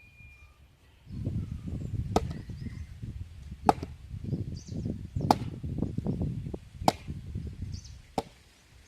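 Hand work in food preparation: a rough scraping or rubbing noise that starts about a second in, with a sharp knock about every one and a half seconds, five in all.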